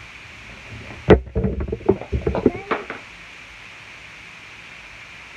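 A loud bump about a second in, followed by about two seconds of knocking and rustling handling noise close to the microphone as someone moves right against the camera.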